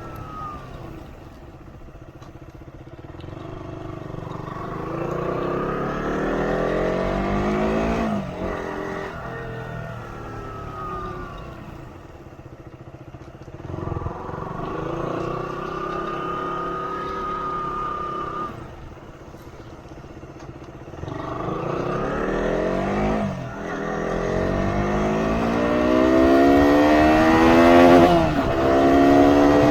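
Motorcycle engine under way, its pitch climbing over several seconds and then dropping sharply, again and again, as it accelerates and changes gear. It is loudest near the end.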